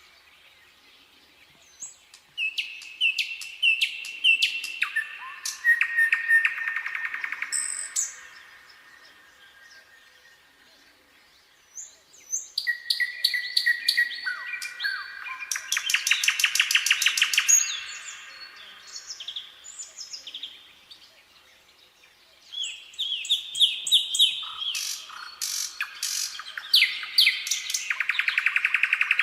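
Nightingale singing: three long phrases of rapid repeated notes and trills, each lasting several seconds, separated by pauses of a few seconds.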